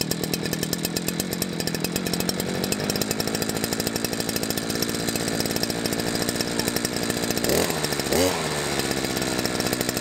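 Strimmer engine running steadily as it cuts long grass, with a brief dip and rise in pitch near the end.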